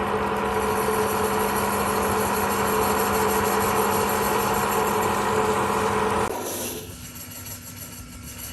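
Wood lathe running with a steady motor hum while a tool rubs and cuts the spinning wood. About six seconds in the cutting stops and the sound drops to a quieter hum.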